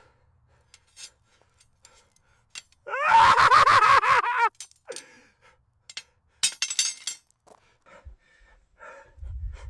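A loud, high, wavering cry lasting about a second and a half, followed by a few light clinks and taps.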